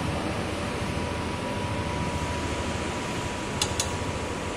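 Steady whirring background noise of a workshop, like an electric fan running, with a faint steady high tone. Two short ticks come about three and a half seconds in.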